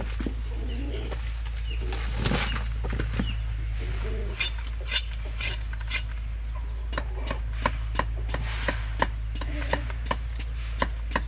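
Machete blade chopping at a fresh cassava root on a wooden block: a few sharp knocks about four seconds in, then a steadier run of about one to two knocks a second.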